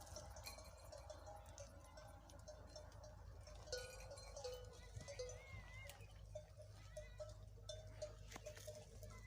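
Faint livestock sounds: small bells clinking repeatedly on moving herd animals, with an occasional bleat.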